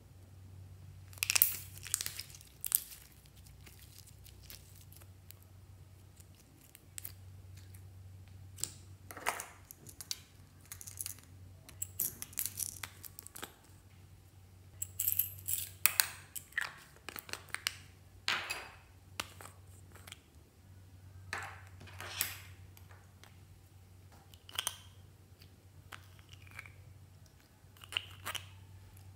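Hands handling slime and small plastic toy containers: irregular crackles, clicks and crinkling, over a steady low hum.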